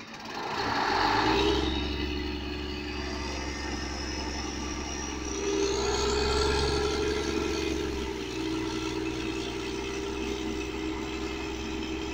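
The engine of a borewell drilling rig truck running steadily, louder briefly near the start and again around the middle. A faint whine rises in pitch over the first half.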